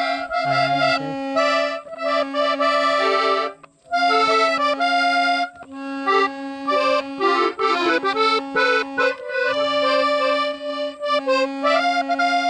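Small piano accordion playing a tune: a held bass note under a moving melody, with one short break a little under four seconds in.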